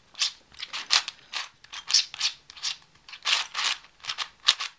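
Plastic 3x3x7 cuboid twisty puzzle being scrambled by hand. The layers are turned in quick succession, each turn a short clicking scrape of plastic pieces, about two to three turns a second.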